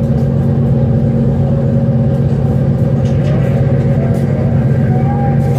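OceanJet fast ferry's diesel engines droning steadily under way, heard inside the passenger cabin as a loud, even low hum.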